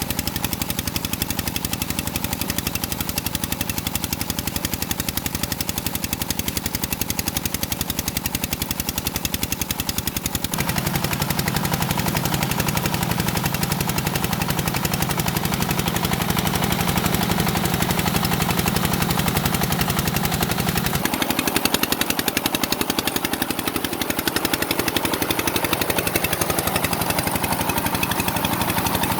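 An engine running steadily with a rapid, even pulsing. The sound changes abruptly about ten seconds in and again about twenty-one seconds in.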